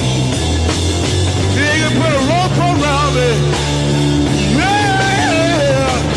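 Rock music with a wavering lead melody over a steady bass line.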